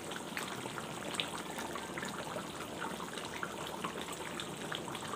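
Thick fish curry boiling in a pan: a steady bubbling with many small pops.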